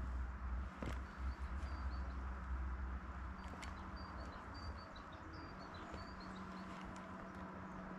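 Small birds chirping in quick runs of short high notes, over a low rumble of wind on the microphone that eases after about three seconds, with a few sharp clicks.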